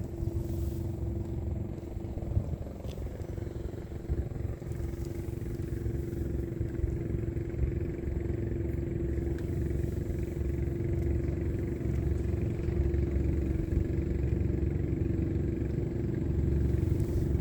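Medium-sized fishing boat's engine running steadily, a low rumble with a steady hum, growing gradually louder as the boat comes in.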